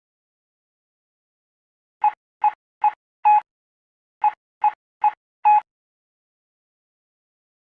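Morse code tones: two identical groups of three short beeps and one longer beep, all at one steady pitch, spelling the letter V (dot-dot-dot-dash) twice, starting about two seconds in.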